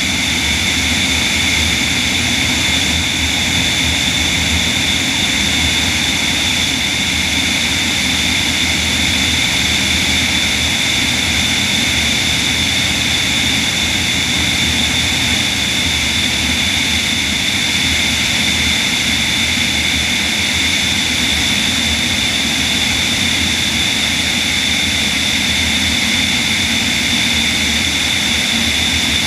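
Steady in-flight noise of a magniX magni500 electric-powered DHC-2 Beaver floatplane heard from under its wing: propeller and airflow rush, with a low hum and two steady high-pitched whines that hold unchanged throughout.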